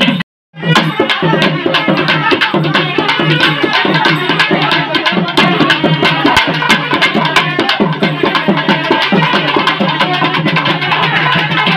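Fast, dense drumming with music, a quick run of strikes that does not let up; the sound drops out completely for a moment just after the start, then resumes.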